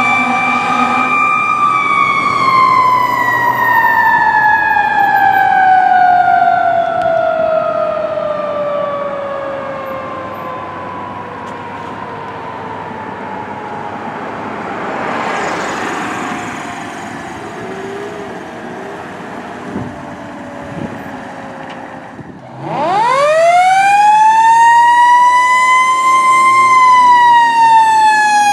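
2010 Pierce Quantum fire engine's siren wailing as it responds: a single tone that holds, then sinks slowly and fades for about twenty seconds, then winds sharply back up, holds, and starts falling again near the end.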